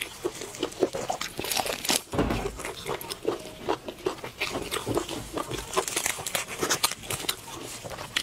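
A person eating spiced sheep's head close to the microphone: irregular biting, chewing and crunching, a quick run of small clicks and wet strokes.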